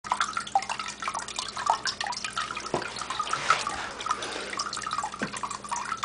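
Water trickling and dripping from the copper tiers of a tabletop cat water fountain into its ceramic bowl: a busy run of small plinks and splashes, over a faint steady hum from the plugged-in pump.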